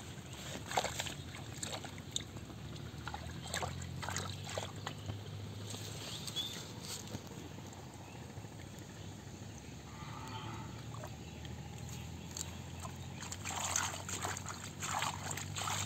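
Hands sloshing and scooping in shallow muddy water, in short irregular splashes that bunch together near the end. A bird chirps once briefly.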